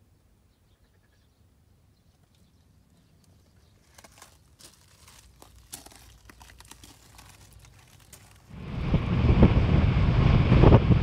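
Faint clicks and rustling, then from about 8.5 s in a bass boat running fast across open water: heavy wind buffeting the microphone over rushing water, much louder than what came before.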